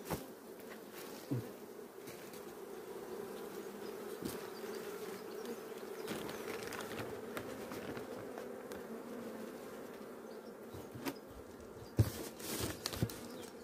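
Honeybees buzzing in a steady hum around an open hive, with a few light knocks near the end as the hive is handled.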